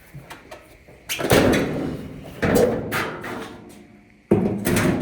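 Sheet-metal dryer cabinet parts being lifted and shifted: three loud scraping clatters with sudden starts, about a second in, halfway through and near the end, each dying away over about a second.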